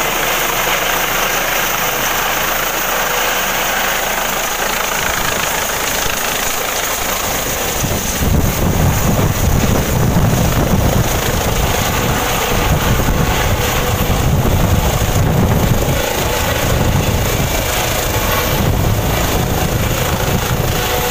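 Airbus H135 (EC135) helicopter's engines and rotors running as it comes down over the helipad to land. About eight seconds in, a louder, gusty low rumble joins as the rotor wash reaches the microphone.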